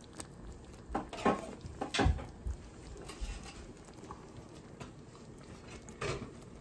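A wooden spoon working steak pieces into a thick cream sauce in a pan, giving a few soft, wet squelches, bunched about one to two seconds in and once more near the end.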